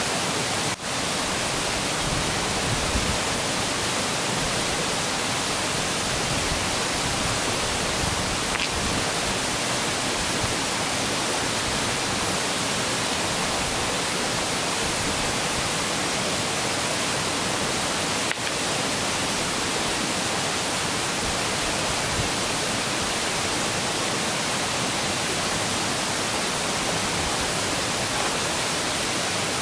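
Steady rushing of a river, an even wash of water noise with no break.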